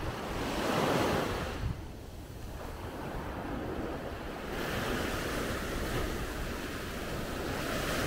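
Sea waves breaking and washing up the beach, one swelling about a second in and another building from around the middle, with wind rumbling on the microphone.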